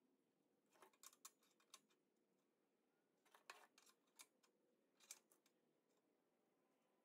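Faint clicks and light metal taps of a steel angle-iron frame being handled and shifted on a metal table, in three short clusters about a second, three and a half seconds and five seconds in.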